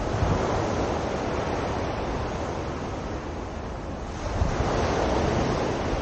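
Rough sea surf breaking and washing ashore in strong wind, swelling twice, once near the start and again a little past the middle, with gusts rumbling on the microphone.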